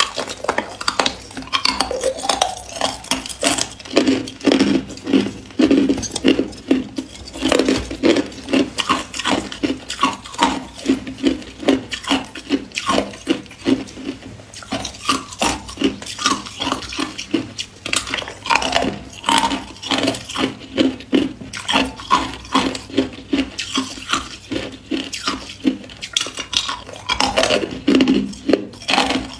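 Hard clear ice being bitten and chewed: continuous rapid crunching and cracking of ice cubes between the teeth, several crunches a second.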